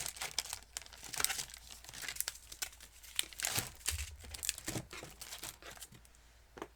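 Plastic packets of craft embellishments being handled and rummaged through: irregular crinkling and rustling with small clicks, heaviest in the first half and thinning out near the end.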